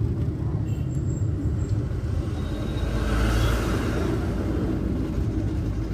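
Steady low road rumble of a car on the move, with a rush of noise swelling and fading around the middle.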